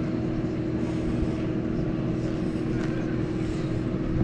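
Steady drone of an engine or motor running at constant speed, with a strong, unchanging hum.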